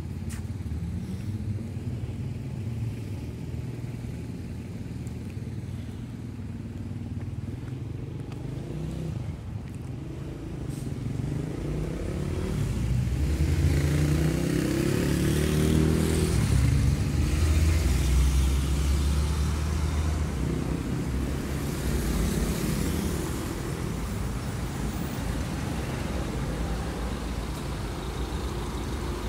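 Street traffic: a steady low rumble of motor vehicles, with an engine passing close in the middle for several seconds, its hum and tyre hiss rising and then fading. A second, lighter hiss of a passing vehicle comes a little later.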